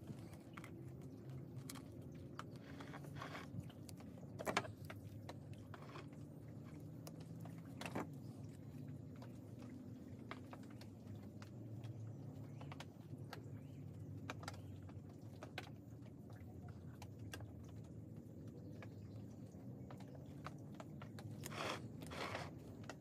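Faint handling noises from a small plastic bottle and a thin brush: scattered light clicks and taps, with a sharper click about four seconds in and a brief flurry of rustling clicks near the end, over a low steady hum.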